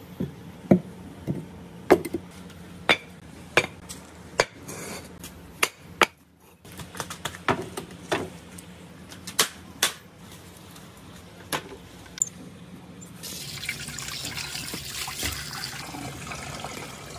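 A string of sharp knocks and clacks as hard objects are set down and positioned, then, about thirteen seconds in, a steady rush of water pouring and splashing into a clear acrylic box.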